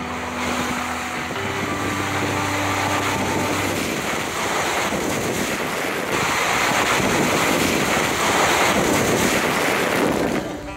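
Tyres splashing through shallow creek water with wind rushing over an outside-mounted camera, as an SUV drives through a flowing wash. It grows louder about six seconds in, with water spray hitting the camera near the end. Background music fades out during the first few seconds.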